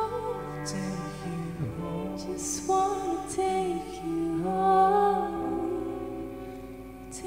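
Slow, tender song performed live: voices singing over piano, violin and cellos. Near the end the voices drop away and sustained low string notes carry on.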